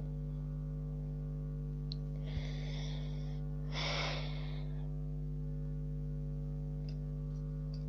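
Two breaths blown close to the microphone, about two and four seconds in, over a steady unchanging electrical hum.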